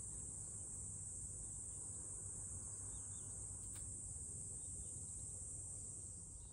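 Insects in the field droning steadily at a high pitch over a faint low rumble, with one brief click a little past the middle.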